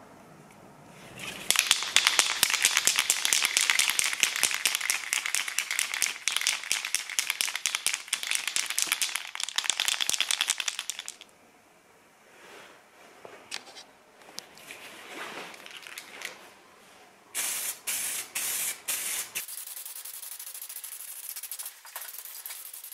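Aerosol spray-paint can shaken hard for several seconds, its mixing ball rattling, then a few short hissing bursts of spray.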